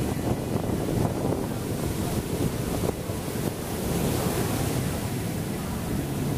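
Ocean surf breaking and foam washing up the sand, with wind buffeting the microphone.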